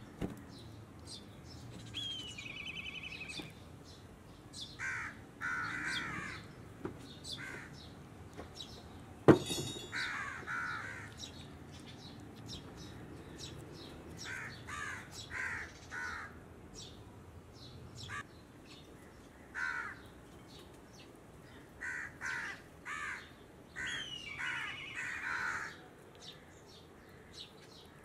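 Crows cawing in short runs of harsh calls again and again, with a falling call near the start and again near the end. A single sharp knock about nine seconds in is the loudest sound.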